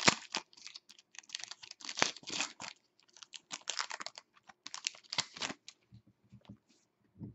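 Foil wrapper of a hockey card pack crinkling and tearing as it is opened, a rapid run of crackles with the loudest over the first two seconds. These thin out to a few scattered clicks near the end as the cards are handled.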